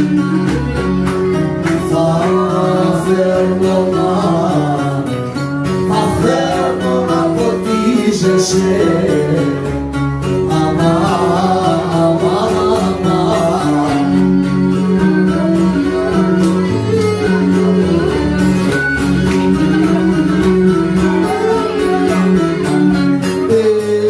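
Cretan lyra bowed alongside a strummed round-backed lute, with a steady drone under the tune and a man singing over the strings.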